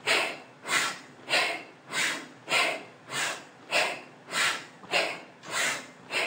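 A woman doing rapid, forceful breathing through the nose as a yogic pranayama exercise: sharp, hissing breaths in a steady rhythm, a little under two a second.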